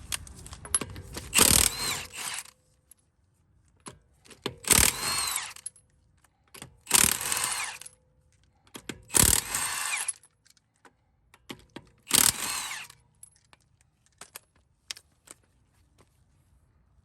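Impact wrench spinning off a wheel's lug nuts: five short bursts of the tool, a few seconds apart. Small clicks and clinks come between the bursts.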